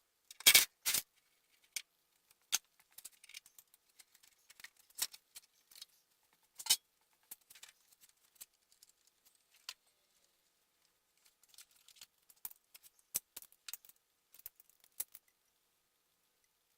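Hand tools working on metal: scattered, irregular clicks and clinks, a few sharper knocks, with a busier run of clicking near the end.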